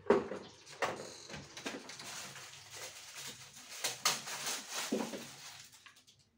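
Irregular knocks, taps and rustling from handling work. There is a sharp knock at the start and another about four seconds in, and the sound dies away just before the end.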